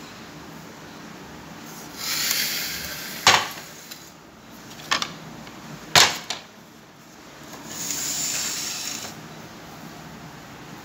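China plates and cups being handled and set down: two sharp clinks about three and six seconds in, a lighter click in between, and stretches of rustling, sliding noise.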